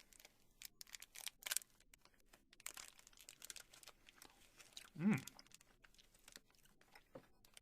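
Plastic snack wrapper crinkling in short, scattered rustles as it is handled, with a brief hummed vocal sound about five seconds in.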